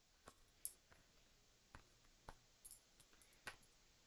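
Tarot cards being handled and laid out: about six faint, short ticks and flicks of card stock.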